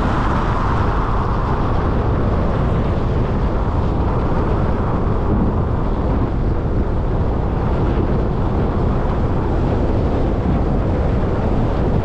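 Car driving on a wet, slushy road: a steady rush of tyre and road noise.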